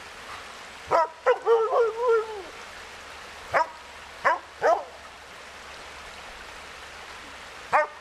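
Dogs barking and yipping in play: one bark about a second in, a run of wavering yelps straight after, three short barks around the middle, and one more near the end, over the steady rush of a stream.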